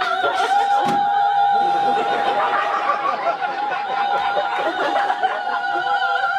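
A performer's voice holds one long, high sung 'aah' note with a slight wobble, as a vocal sound effect for the tree beginning to glow. Audience laughter rises beneath it from about a second and a half in.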